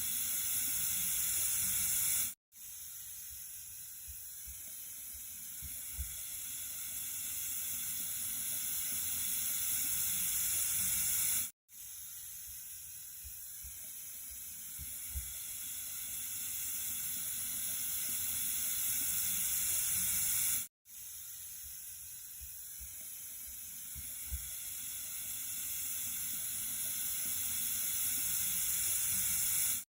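Steady hissing stream of running water, like a tap left open. It is a short loop: every nine seconds or so it cuts out for an instant and restarts, growing gradually louder over each pass, with a faint tick partway through.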